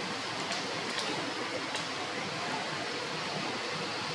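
Steady rain falling on forest foliage: an even hiss with a few faint ticks in the first two seconds.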